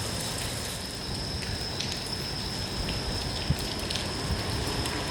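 Steady rain falling, with scattered sharp ticks and a thin, high, steady tone over it.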